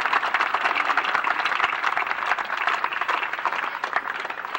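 Crowd applause, many hands clapping at once, thinning slightly toward the end.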